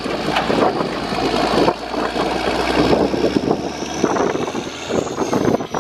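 Cummins 14-litre straight-six diesel engine of a 1990 Freightliner FLD truck running steadily. A thin high whine rises and then falls near the end.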